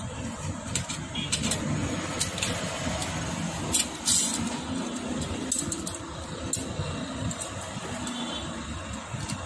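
Light metallic clicks and clinks, scattered irregularly, as a thin metal head gasket is slid down over the cylinder studs and seated on the cylinder. Under them runs a steady background rumble.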